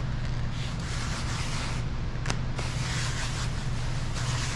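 Soft rustling of clear paint protection film being handled on a car's side mirror, in two stretches, over a steady low hum.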